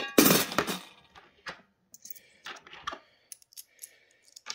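A £2 coin dropped through the slot of a coin savings tin, landing with a ringing clatter in the first second. A few light clicks and taps follow.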